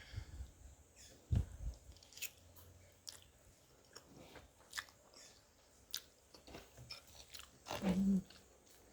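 Close-up chewing and mouth sounds of someone eating: soft, scattered wet clicks and smacks.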